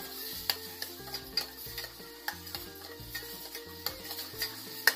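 Chicken pieces sizzling as they sauté with garlic and onion in a pot, stirred with a utensil that scrapes and knocks against the pot, the loudest knock near the end. Background music runs underneath.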